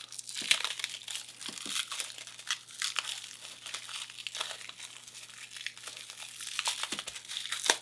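Plastic wrap crinkling and tearing as hands pull it off a wrapped padlock, in a continuous run of small crackles.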